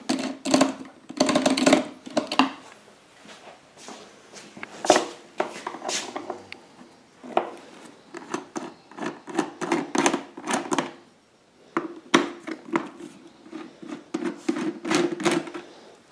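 Screws being removed from a Honda EU1000i generator's plastic housing with a screwdriver: repeated clicks, taps and knocks of the tool and screws. A steady hum comes in for a few seconds twice, once in the middle and again near the end.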